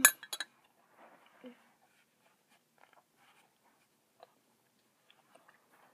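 A quick run of sharp clicks and knocks at the start, then faint rustling and small soft sounds from eating cereal by hand.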